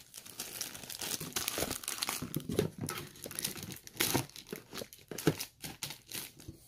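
Plastic-wrapped sticker packs crinkling and rustling as they are handled and packed into a cardboard shipping box, with irregular crackles and light knocks.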